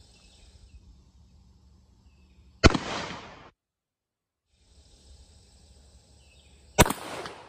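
Two shots from a Hatfield single-shot 20-gauge shotgun firing 2¾-inch No. 5 shot loads, about four seconds apart, each a sharp report with a short fading tail.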